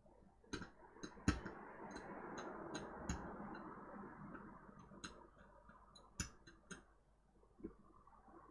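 Small sharp clicks and taps of metal tools against a laptop mainboard, irregular and about a dozen in all, over a soft hiss that fades out near the end.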